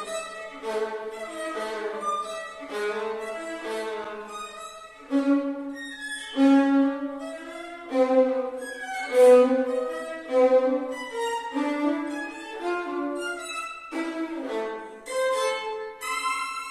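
Violin playing a quick run of bowed notes, louder from about five seconds in.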